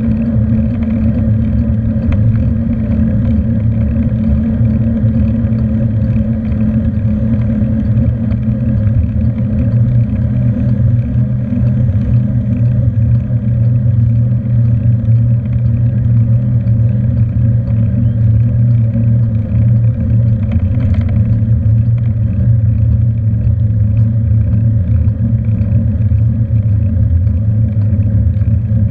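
Steady low rumble of wind and road vibration picked up by a handlebar-mounted camera on a moving bicycle.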